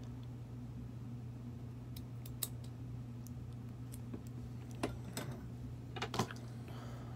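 Scattered small clicks and taps from handling small tools and metal atomizer parts on a desk, the sharpest near the end, over a steady low hum.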